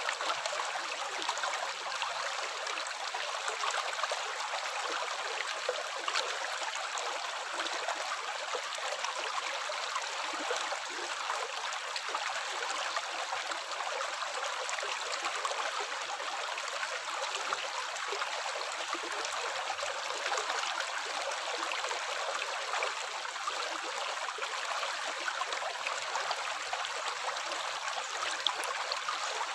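Water running steadily, a continuous splashing trickle with small scattered plinks.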